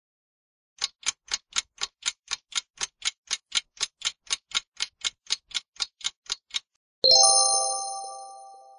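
Quiz countdown-timer sound effect: a clock ticking steadily, about four ticks a second, then a bright bell-like chime about seven seconds in that rings out and fades over about two seconds, marking time up and the answer being shown.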